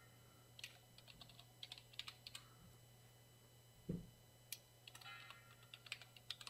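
Faint computer keyboard typing: two quick runs of keystroke clicks, with a soft low thump in the pause between them.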